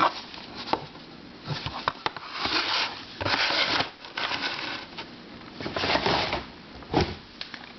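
Handling noise as puzzles are picked up and moved about: a run of short rustling scrapes, each about half a second, with small clicks between them.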